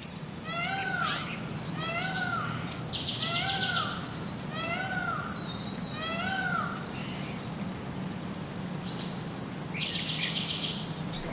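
Birds calling: a short arched call repeated about once a second for the first several seconds, with thinner falling chirps above it. Two brief buzzy trills come a few seconds in and near the end.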